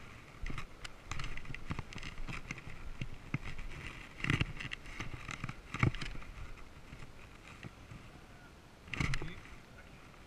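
Irregular clicks and knocks of an action camera being moved and handled, with three louder thumps, about four seconds in, about six seconds in and near the end.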